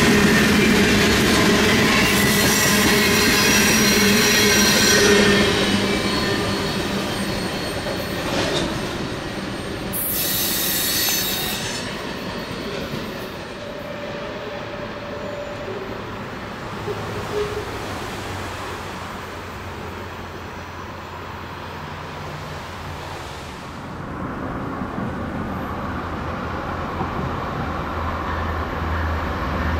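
Long freight train rolling past, its wheels squealing high on the rail in the first few seconds and again briefly about ten seconds in, then a quieter rumbling of the cars. Near the end a low steady drone comes in.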